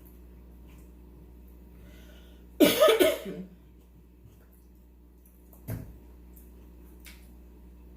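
A person coughing: one loud, harsh cough about a third of the way in, with a much fainter throat sound a few seconds later.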